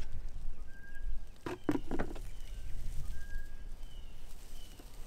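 A few short knocks and rustles from handling around the tegu's box, with faint short bird whistles in the background.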